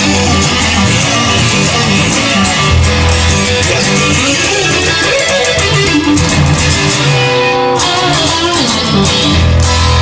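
Instrumental passage of a rock song with no singing: guitar-led, over a bass line and a steady beat.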